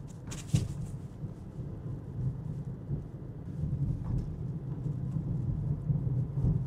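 Car being driven, heard from inside the cabin: a steady low engine and road rumble, with a couple of short clicks about half a second in.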